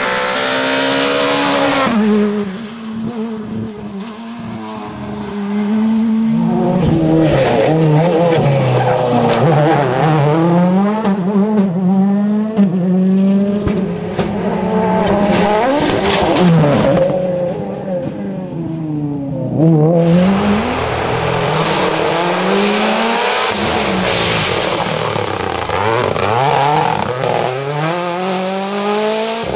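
Rally cars at speed on a special stage, one after another: engines revving high and dropping away through gear shifts and braking for corners. A Skoda Fabia S2000 comes first and a Mini WRC car near the end.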